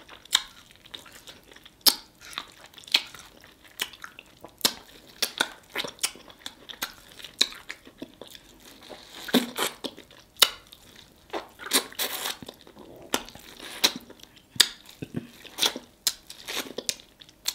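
Close-up eating sounds from a seafood boil mukbang: chewing and lip-smacking on sauce-covered seafood. It is a string of irregular sharp clicks and smacks, one or two a second.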